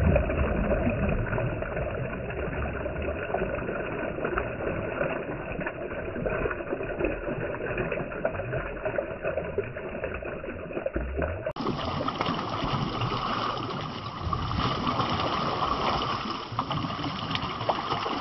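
Steady rushing of water and wind noise with a low rumble. About eleven and a half seconds in it changes abruptly to a brighter, hissier sound.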